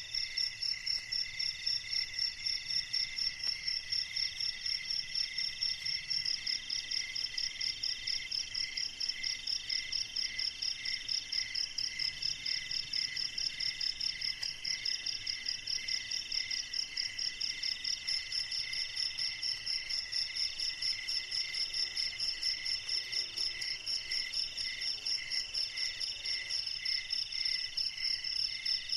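Night-time insect chorus of crickets: several insects call at once at different pitches, each in steady, rapid, even pulses.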